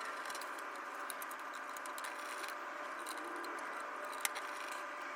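Steady faint background hum with a few light clicks and rattles, the clearest click about four seconds in.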